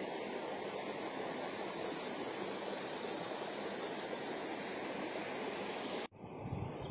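Steady rush of a waterfall's falling water. It cuts off abruptly about six seconds in, and a quieter hiss with a few low thumps follows.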